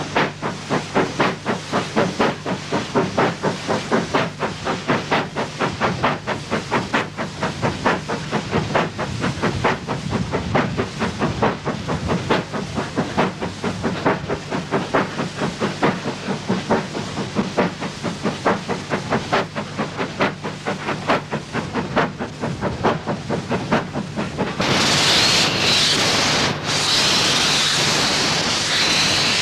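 Steam locomotive chuffing, its exhaust beats coming in a steady rhythm a few times a second. About 25 seconds in it gives way suddenly to a loud, steady hiss with a high tone held in it.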